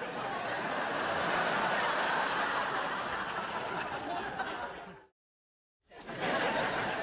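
Sitcom laugh track: a studio audience laughing, rising at the start and fading out about five seconds in. After a moment of dead silence, a second canned audience laugh starts near the end.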